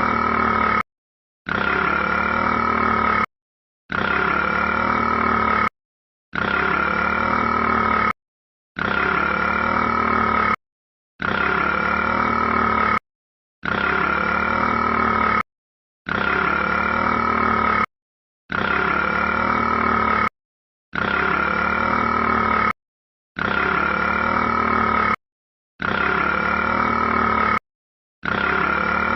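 A rat's burp sound, one short clip looped again and again: each burp lasts about two seconds and holds a steady pitch, with a brief dead silence between repeats, about one every two and a half seconds.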